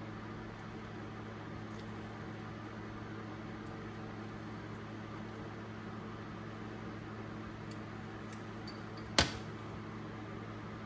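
Steady low hum with a few light clicks near the end and one sharp metallic click about nine seconds in, from small ratchet parts being handled during cleaning and greasing.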